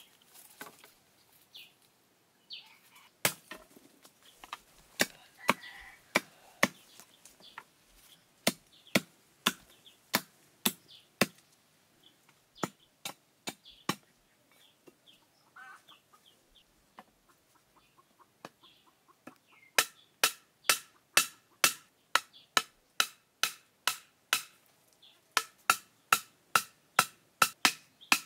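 Repeated chopping strikes of a tool on wood. They come irregularly at first, then settle into a steady run of about two strikes a second for the last third.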